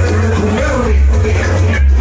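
Loud dance music played over a sonidero sound system, with a heavy, pulsing bass line under the melody.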